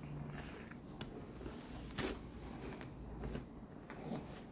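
Quiet eating sounds: a man chewing and handling his fast food, with small scattered clicks and one sharp knock about two seconds in.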